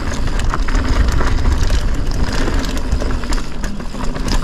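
Mountain bike descending a dirt trail: steady wind rumble on the action camera's microphone, with tyre noise on dirt and a run of short rattles and clicks from the bike over rough ground.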